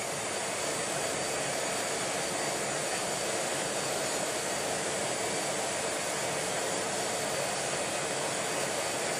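Steady rushing jet-aircraft noise with a faint high whine, heard from inside an airliner cabin parked at the gate.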